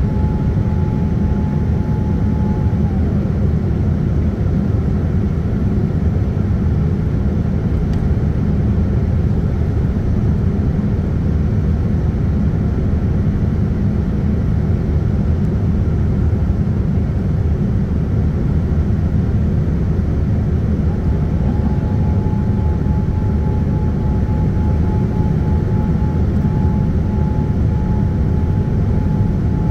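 Cabin noise of a Boeing 787-10 in flight, heard by the wing: a loud, steady rumble of airflow and engines. A faint high whine glides down and fades out about three seconds in, then glides back up and returns about twenty-one seconds in.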